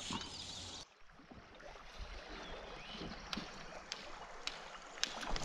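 Faint moving river water around a drifting canoe, with a few light ticks in the second half. The sound drops out briefly about a second in.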